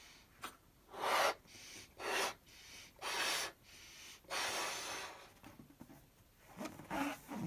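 A series of breathy puffs of air, four in a row about a second apart, the last one longer. Faint voice-like sounds come near the end.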